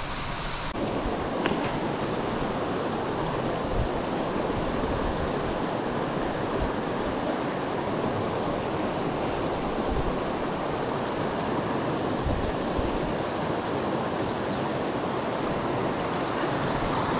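Small stream's water rushing, a steady even rush.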